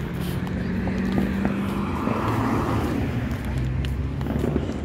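Street traffic: a steady low engine hum, with a car passing by about two to three seconds in.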